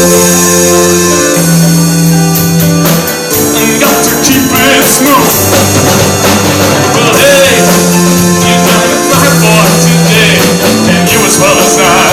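A rock band playing a song, with sustained bass notes and regular drum hits under a wavering lead line.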